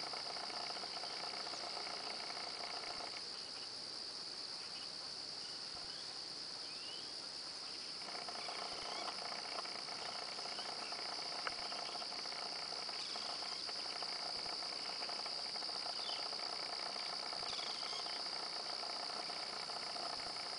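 Steady, high-pitched insect chorus, with a lower, steadier drone beneath it that drops out for a few seconds early on. A few short bird chirps come through here and there.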